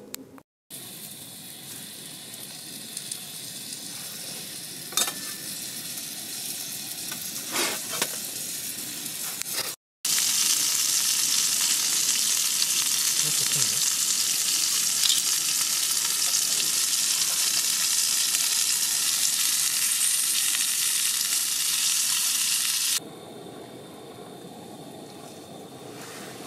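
A pot of broth with fish cakes boiling on a gas camping stove: a steady bubbling hiss from the boil and burner, quieter with a few sharp clicks at first, much louder from about ten seconds in, then dropping sharply shortly before the end.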